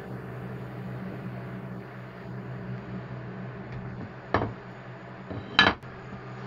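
Two sharp knocks about a second apart, the second louder, from a hardwood knife-scale blank being handled and knocked against the table, over a steady low hum.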